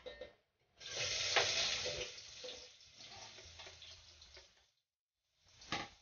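Chopped red onion hitting hot oil in a pan and sizzling, strongest at first and dying down over a few seconds. A short knock near the end.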